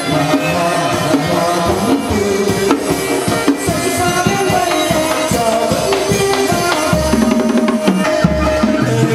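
Chầu văn ritual music played live without singing: a plucked melody over a busy beat of drum and small percussion, with heavier low drum sound near the end.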